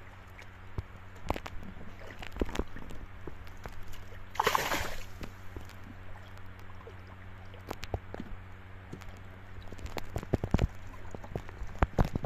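Water sloshing and dripping as a fishing net is hauled by hand out of the river into a wooden boat, with one splash about four and a half seconds in. Irregular knocks and clicks come from the net and hands against the boat, thicker and louder near the end as a tilapia caught in the mesh is lifted aboard.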